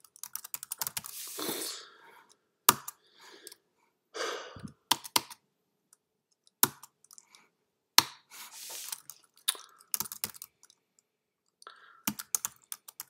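Typing on a computer keyboard in short irregular bursts of key clicks, with a few sharper single clicks between them.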